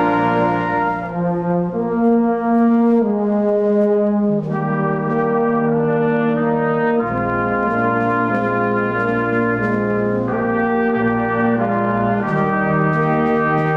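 Brass band playing a slow piece in held chords that change every second or two.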